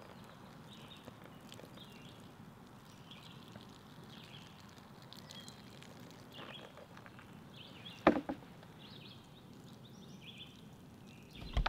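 Quiet outdoor ambience with faint, repeated bird chirps, and a single sharp knock about eight seconds in.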